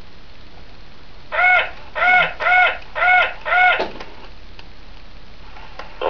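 FurReal Friends toy parrot giving five short squawking calls in quick succession from its speaker, each arching up and down in pitch.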